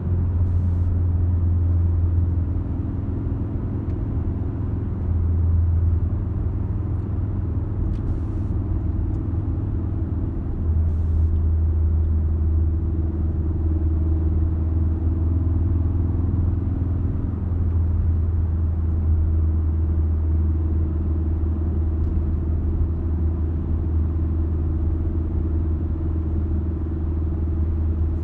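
Ford Focus RS's turbocharged 2.3-litre four-cylinder engine and tyre noise heard from inside the cabin while driving: a steady low drone that swells for short stretches and stays at its loudest from about eleven seconds on.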